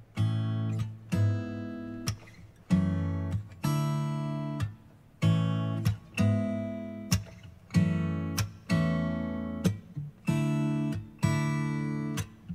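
Background music: strummed acoustic guitar chords, struck about once a second, each ringing out before the next.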